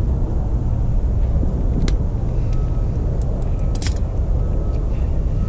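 Steady low rumble, with a few small sharp clicks from pliers and wire connectors being handled, the loudest about four seconds in.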